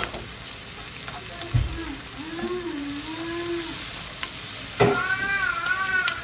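Chopped tomatoes and sausage sizzling in a frying pan as a wooden spoon stirs them, with a thump about one and a half seconds in. A small child's wavering cries are heard twice, in the middle and again from near the end.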